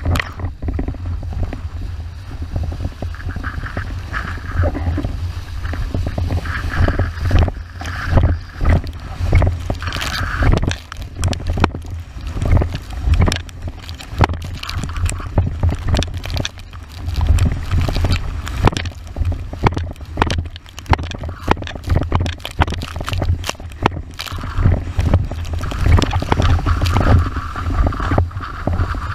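Windsurf board planing fast across chop, its hull slapping the water in many quick, irregular hits amid hissing spray, under heavy wind buffeting on the rig-mounted camera's microphone.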